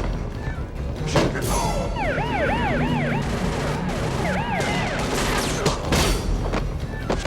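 Film sound mix: an alarm siren warbling up and down about four times a second in two short spells, with loud sharp hits and clangs before and after.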